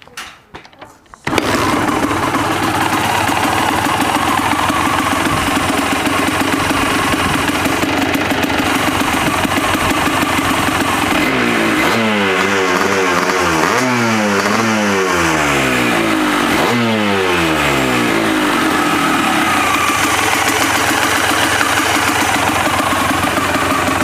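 Kawasaki KDX200SR two-stroke engine starting about a second in after a few short strokes, then running steadily, revved up and down several times in the middle before settling back. The engine is being run to show an abnormal noise from it.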